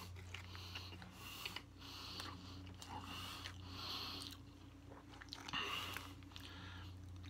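A mouthful of crispy fried-chicken sandwich being chewed close to the microphone, soft crunchy chewing sounds every second or so, over a faint steady low hum.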